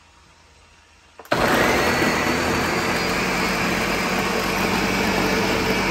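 Countertop blender switched on about a second in, its motor then running steadily as it purées a full jar of chopped bell peppers, tomatoes and onions.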